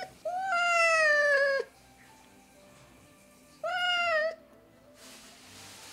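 A domestic cat meowing twice. The first call is long and falls in pitch, starting about a quarter second in; the second, shorter one comes about three and a half seconds in.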